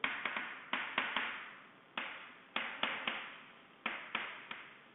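Chalk writing on a blackboard: over a dozen sharp taps in irregular little clusters as the chalk strikes and scrapes across the board, each fading away quickly.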